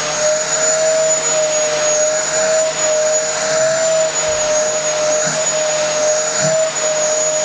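Upright bagless vacuum cleaner running steadily, its hose wand drawn through a St. Bernard's thick coat to suck out loose hair. The motor gives a constant, even whine.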